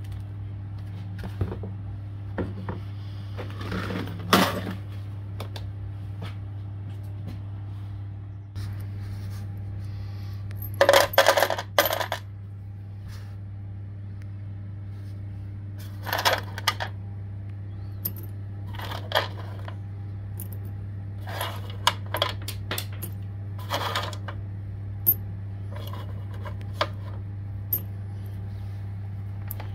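Small pieces of metal clinking and jingling as they are dropped and handled, in short clusters every few seconds, loudest about eleven seconds in. A steady low hum runs underneath.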